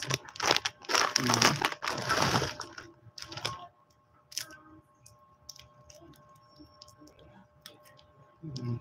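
Plastic-wrapped hard candies spilling out of a plastic bag in a dense crinkling, rattling rush for about two and a half seconds, then sparse crinkles and clicks as single wrapped candies are handled.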